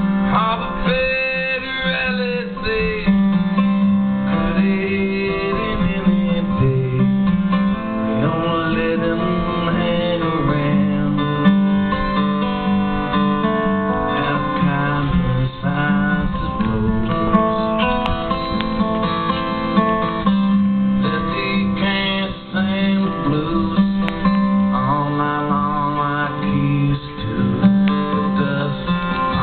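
Guitar played live as continuous music, the notes and chords going on without a break.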